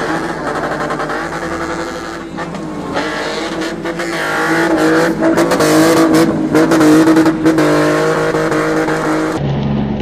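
RB25 straight-six in a Datsun spinner car, revved hard and held high while the car spins its rear tyres. The revs dip briefly about two seconds in, then climb and stay high. The engine note drops to a duller, lower sound near the end.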